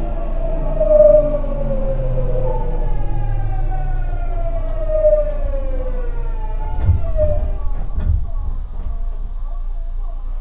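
Tokyu 9000 series train's Hitachi GTO-VVVF inverter whining under braking, several tones falling steadily in pitch as the train slows for the station, then cutting out about seven seconds in. A few low knocks follow as the train comes to a stop.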